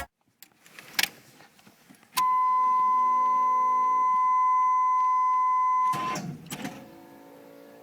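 A click, then a steady, high electronic beep held for almost four seconds before it cuts off, followed by a brief rustle.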